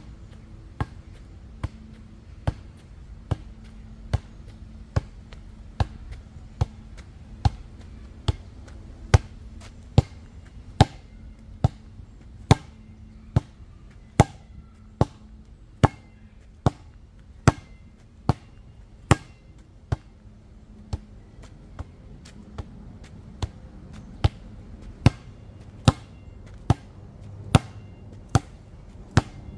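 An orange rubber ball being bounced and struck by hand in a steady rhythm, one sharp smack a little more than once a second.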